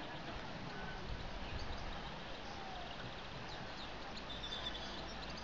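Garden ambience: a few short bird chirps over a steady low background noise.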